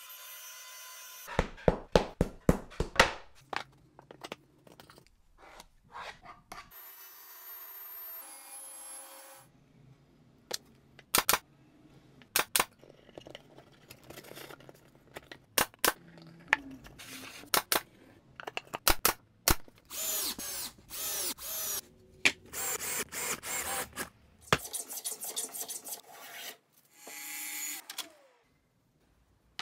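A string of woodworking shop sounds: quick sharp taps and clicks, then a drill driving screws in short repeated bursts.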